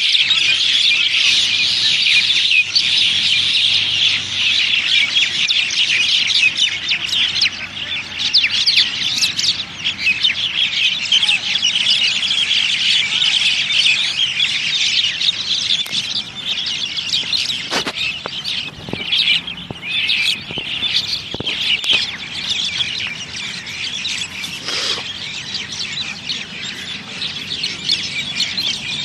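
Many birds chirping and chattering at once, a dense continuous chorus of short overlapping calls, with a few short sharp knocks in the middle.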